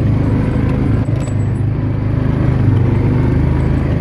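Yamaha Grizzly 400 ATV engine running steadily under way on a trail, with a brief dip about a second in.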